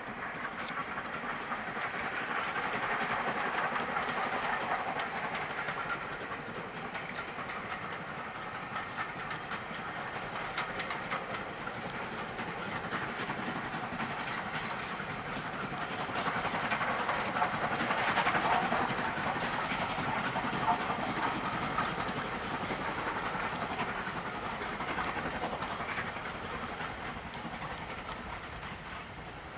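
Steam locomotive hauling a passenger train, heard from a distance: a steady rush of exhaust and the rumble and clack of coaches on the rails. It swells about two to five seconds in and again around sixteen to twenty seconds in.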